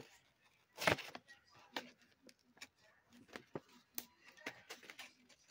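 Stiff plastic blister packaging being cut and pried open with a utility knife: a loud crackle about a second in, then scattered sharp clicks and crinkles of the plastic.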